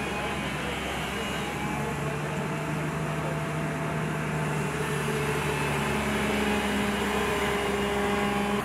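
Hyundai crawler excavator's diesel engine and hydraulics working under load as the bucket scoops wet peat and lifts it out of the trench. The engine note holds steady, then shifts about six seconds in as the boom swings up.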